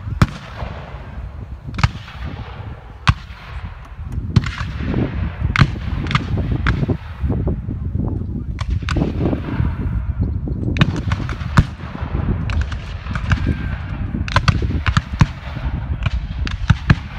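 Black-powder muzzle-loading muskets firing blank charges in scattered, irregular shots of varying loudness, over a steady low rumble.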